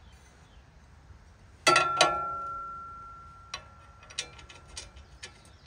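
A steel hitch plate clanks twice against the mower's rear steel bracket as it is set in place, leaving a ringing tone that fades over about two seconds. A few light metallic clicks follow as the plate is handled into position.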